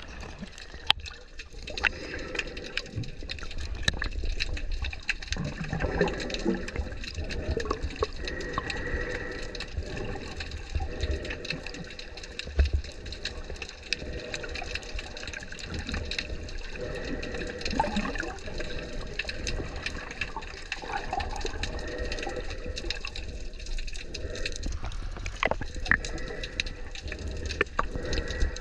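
Water sloshing and gurgling steadily, with scattered small splashes and knocks.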